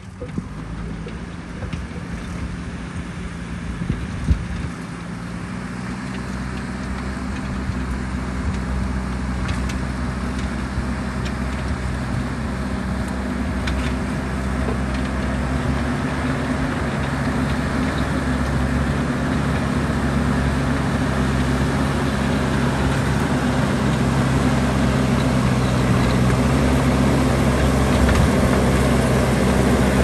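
JCB backhoe loader's diesel engine running under load as the machine drives forward pushing soil and rocks with its front bucket, growing steadily louder as it comes closer.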